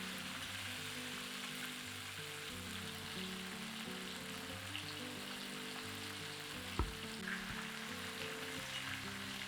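Food sizzling steadily as it fries in hot oil in a pan. A single low thud comes about seven seconds in.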